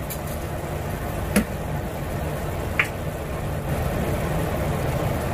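Ground-meat and broth sauce simmering in a frying pan on a gas stove: a steady low bubbling, with two small clicks about one and a half and three seconds in.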